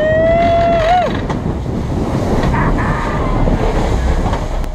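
Wind buffeting the microphone over waves and a boat's running noise on the open ocean. For the first second a single high held tone with overtones rises, holds and then drops away.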